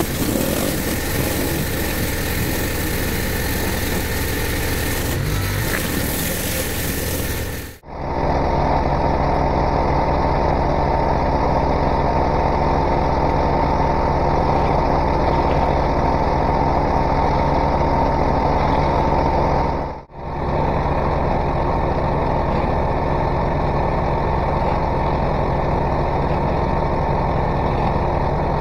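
Pressure washer cleaning block paving through a BE 16-inch Whirl-A-Way rotary surface cleaner. For the first several seconds there is a steady spray hiss, then a steady machine drone. The sound changes abruptly about 8 seconds in and cuts out briefly about 20 seconds in.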